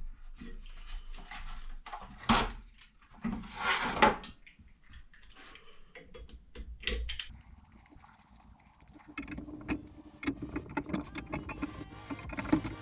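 Metal parts of a motorcycle shock spring compressor clinking and clanking as it is fitted onto a rear shock and spring, in scattered sharp knocks.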